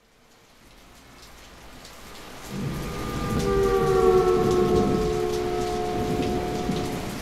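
Rain and rumbling thunder fading in from silence, growing steadily louder over the first few seconds, the opening of a song recording. From about two and a half seconds in, a few long held musical notes sound over the rain, sagging slightly in pitch.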